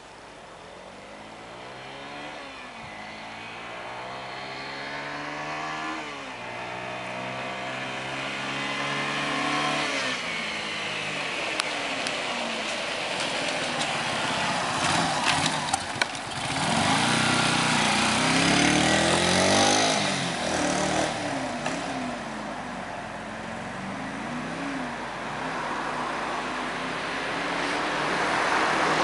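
Yamaha SR125's single-cylinder four-stroke engine accelerating up through the gears, its pitch climbing and dropping back at each change. It then runs loudest as the bike passes close by.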